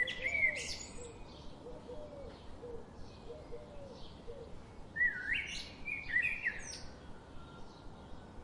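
Wild birds singing: a louder warbling song phrase at the start and again about five seconds in, a low short call repeated about twice a second through the first half, and faint high chirps from other birds throughout.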